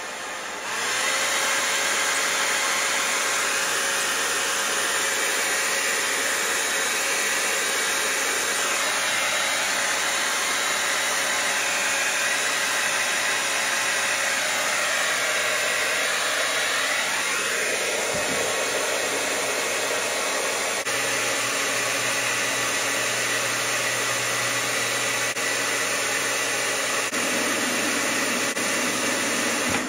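Electric hot-air blower running steadily at full power as a resistive load on a 4000 W inverter fed by a 12 V lithium battery: a loud even whoosh that comes up about a second in. The inverter's cooling fans cycle on and off under it.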